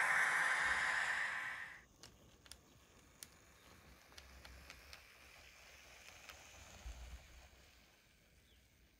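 A steady hiss that cuts off sharply about two seconds in, followed by a few faint clicks and a low rumble from an N gauge model diesel multiple unit running along the track toward the station.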